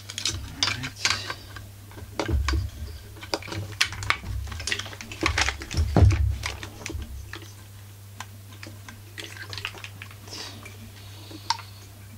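Irregular clicks, taps and knocks as gloved hands push ignition wires and plastic parts into a Husqvarna 44 chainsaw's plastic housing. The heaviest knock comes about six seconds in.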